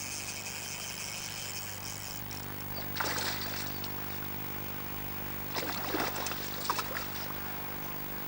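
River water splashing at the surface in a few short bursts, about three seconds in and again around six seconds, over a steady low hum.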